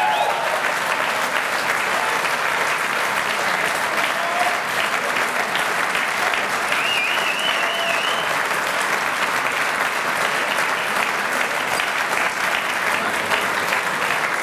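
Audience applause: many hands clapping in a dense, steady patter that holds at one level throughout.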